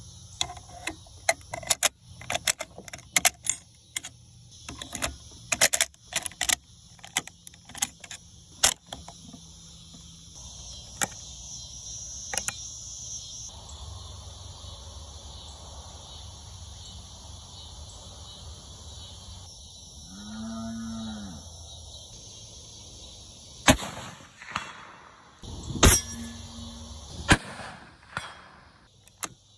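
Metallic clicks of .303 cartridges being pressed from stripper clips into a Lee-Enfield No. 4 rifle's magazine and the bolt being worked, over a steady buzz of cicadas. A cow moos once about twenty seconds in, and three loud sharp knocks come near the end.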